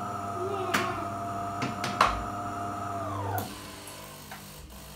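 DeLonghi ECAM350.55 bean-to-cup coffee machine running its switch-on rinse cycle: its pump hums steadily with a whine, then stops about three and a half seconds in. A few sharp clicks come during it, the loudest about two seconds in.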